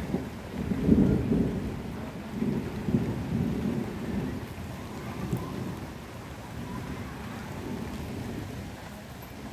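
Thunder rumbling over steady rain. The rolling rumble peaks about a second in and again about three seconds in, then dies away, leaving the even hiss of the rain.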